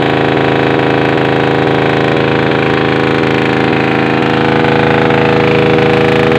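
Suzuki Smash 115's single-cylinder four-stroke engine running at a steady speed through an aftermarket M4 muffler, getting a little louder about five seconds in.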